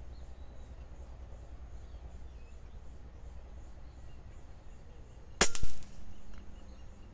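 A P35 PCP air rifle fitted with a Fiora-prepared barrel fires a single pellet shot: one sharp crack about five seconds in, followed a fraction of a second later by a second short click.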